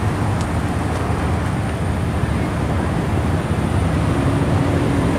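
Steady low rumble of car engines and road traffic. A steadier engine hum joins in near the end.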